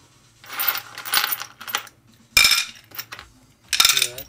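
Metal engine parts and hand tools being picked up and set down on a workbench: irregular clinking and clattering, with a sharp metallic clank a little over two seconds in and a ringing clatter near the end.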